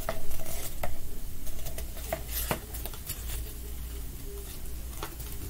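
Paper crackling and rustling as a folded paper checklist leaflet is unfolded and handled: a run of short crackles in the first three seconds and one more near the end.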